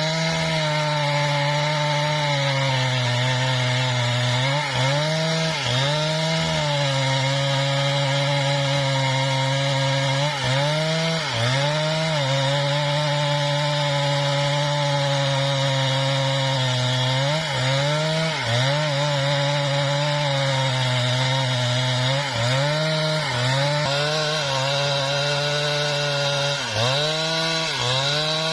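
Husqvarna 395XP two-stroke chainsaw ripping lengthwise through a mahogany log, running at high speed under load. Its pitch dips briefly and climbs back several times as the cut loads the engine.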